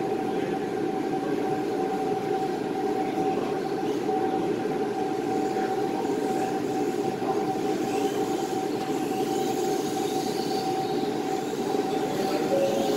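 A steady mechanical hum with one constant tone running under it, with faint high whines rising and falling in the second half.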